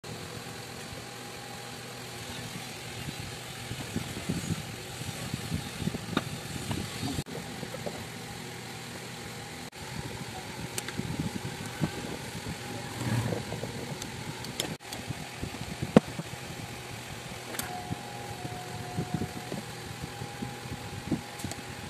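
Small clicks, taps and scrapes of metal and plastic parts and a screwdriver as an angle grinder is put back together by hand: the armature is fitted and the brush holder screwed down. Under them runs a steady engine-like hum, and one sharp click comes about sixteen seconds in. The sound drops out briefly a few times.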